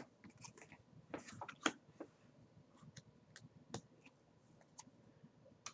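Faint, irregular clicks and soft rustles of tarot cards being handled and turned over.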